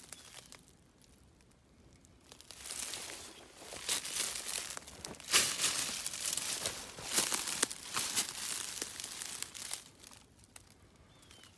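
Dry leaf litter and brush crunching and crackling underfoot as someone pushes through woodland undergrowth, starting about two seconds in, with a few sharper cracks in the middle and dying down near the end.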